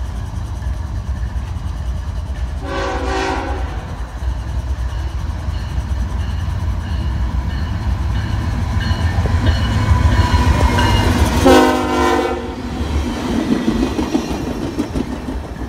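Locomotive horn sounding two short blasts about nine seconds apart, over the steady rumble of a train on the tracks that grows louder towards the second blast.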